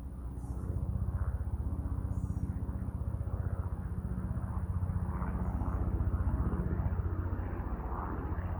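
A steady low engine drone that grows louder about a second in and then holds.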